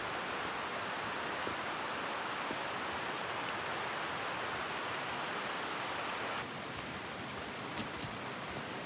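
Steady rush of a fast-flowing creek, dropping a little in level about six seconds in, with a few faint footsteps on a gravel trail.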